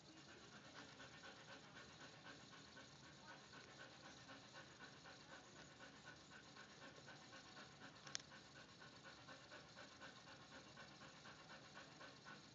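Rottweiler panting, faint, quick and even. A single sharp click about eight seconds in.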